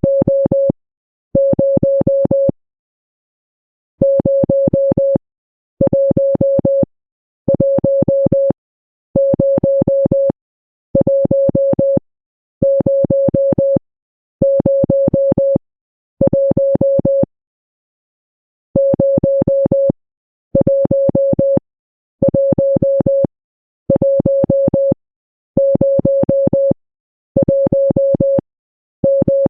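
Morse code tone: a steady mid-pitched beep sent as a long run of even dashes, about a second each and about half a second apart, with a longer break twice.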